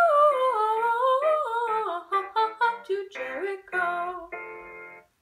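Girl's solo singing voice holding a slow, descending closing phrase over instrumental accompaniment. In the last three seconds the accompaniment's separate notes stand out, and the sound stops just before the end.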